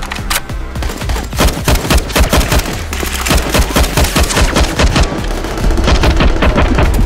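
Rapid gunfire shots, several a second, over background music; the shots grow dense from about a second in.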